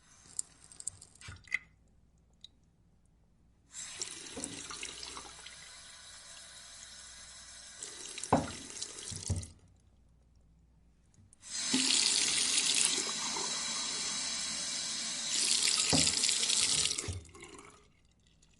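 Sink faucet turned on and off twice, water running into a glass for about five or six seconds each time, the second run louder. A few light clicks come at the start, and short knocks sound during the runs.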